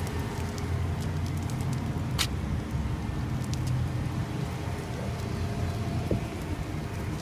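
Steady low motor hum with scattered light ticks and one sharper click about two seconds in.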